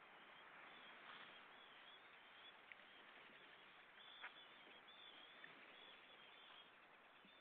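Faint outdoor shoreline ambience, a steady soft hiss, with thin high bird calls repeating every second or so and two sharp clicks a little before and after the middle.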